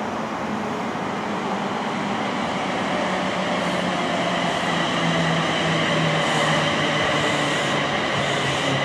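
London Northwestern Railway Class 350 electric multiple unit running through the station: a steady rumble with a held hum and a few high tones, and from about halfway faint ticks roughly once a second.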